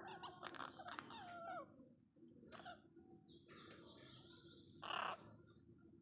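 Orange-fronted parakeets calling: squeaky chattering calls with pitch glides in the first second and a half, a thin high screech from about three to nearly five seconds in, then a single loud harsh squawk about five seconds in.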